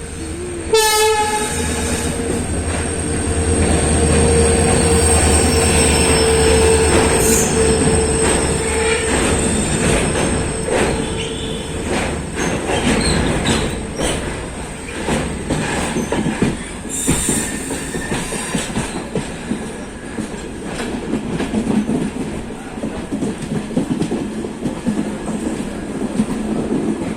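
A train sounds a long horn note for the first half, over a deep engine rumble and steady wheel clatter on the rail joints.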